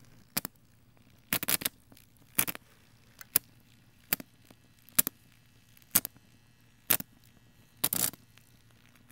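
Molten rock salt pit carrying heavy electric current (250 volts, about 80 amps), with sharp cracks and pops about once a second, some in quick clusters, over a steady low electrical hum.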